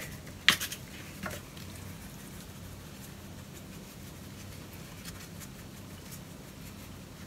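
Gloved hands handling a raw pig's head in a foil roasting pan: a sharp click about half a second in and a couple of softer taps, then faint scattered ticks over a low steady hum.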